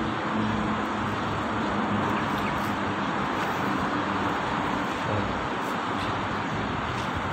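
Steady engine hum of idling buses mixed with general traffic noise, with no distinct events.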